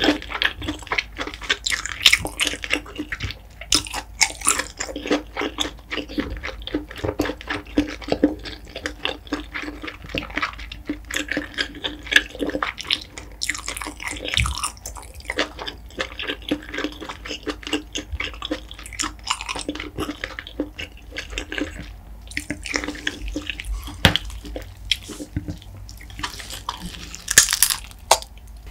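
Close-miked wet chewing of spicy steamed king scallop meat, many small sticky clicks and smacks from the mouth. Near the end there is a brief louder rustle.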